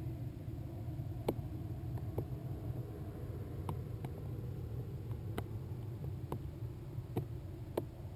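Muffled steady low rumble picked up by the onboard camera of a high-altitude weather balloon payload, with sharp ticks at irregular intervals, about one a second, from the camera housing and payload as it hangs and swings.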